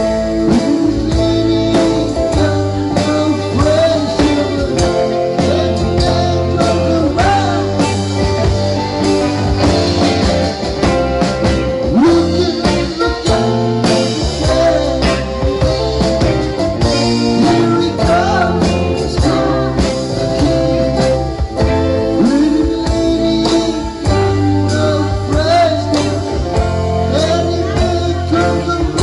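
Live rock band playing: electric guitars, electric bass, drum kit and keyboard, with singing over them.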